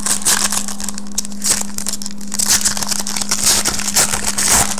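Foil trading-card pack wrapper crinkling and crackling in the hands as it is opened and handled, in many quick rustles, over a steady low hum.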